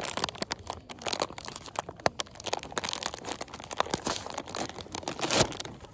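Foil snack bag of potato chips crinkling and rustling as it is pulled open, with a louder rustle near the end.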